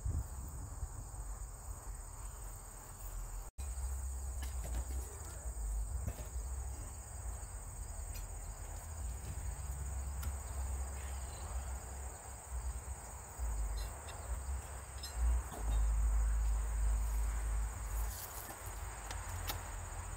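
Steady high-pitched chirring of crickets, with a low rumble underneath that swells about three quarters of the way through and a few faint clicks.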